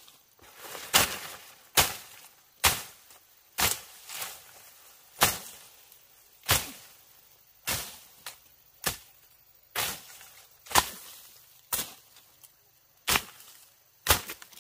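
A hand tool chopping in a steady rhythm, about fifteen sharp strokes at roughly one a second, during tuber harvesting.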